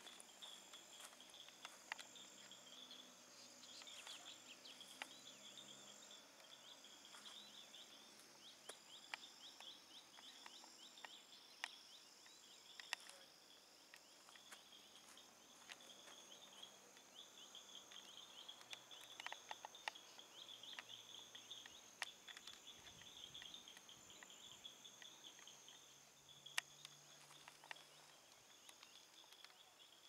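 Faint, continuous chorus of insects chirping in rapid high trills, with scattered sharp clicks.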